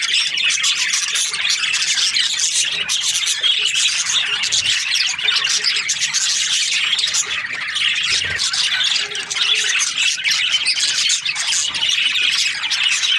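Many budgerigars chirping at once in a dense, unbroken chatter of overlapping calls.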